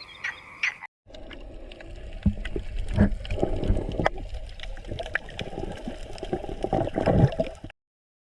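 Water splashing and gurgling irregularly for several seconds, cut off abruptly near the end. Before it, a frog's croaking from the previous clip lasts less than a second.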